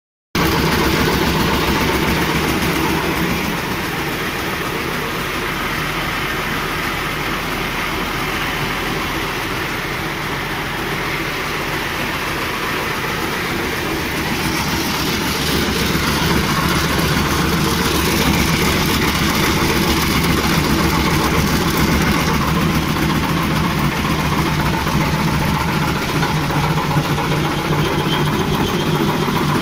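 Automatic peanut blanching machine running, a loud steady mechanical noise with a low motor hum.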